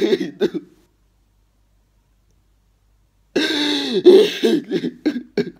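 A man sobbing hard: strained, pitch-bending crying broken by sharp catches of breath. It stops for about two and a half seconds under a second in, then resumes.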